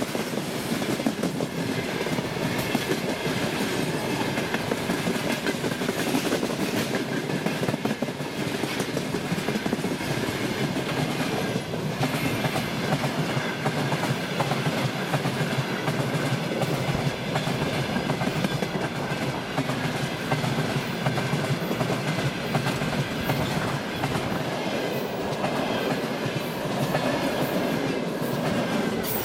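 Freight train wagons (open gondolas, then tank cars and hoppers) rolling past close by at speed: a steady, loud rumble with the clickety-clack of the wheelsets on the rails, and a faint high ringing tone running underneath.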